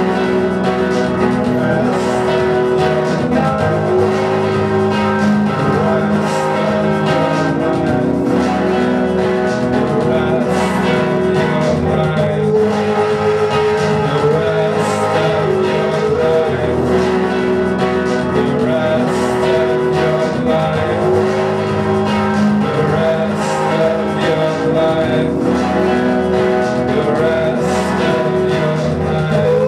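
Live band music: electric guitar and keyboard play a slow, repeating phrase of long held notes over a steady low bed, with a bright accent about every four seconds.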